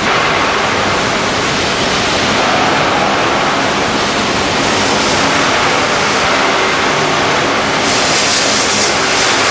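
Steady, loud noise of industrial machinery running, from an automatic steel strapping machine and its factory surroundings, with a brighter hiss about eight seconds in.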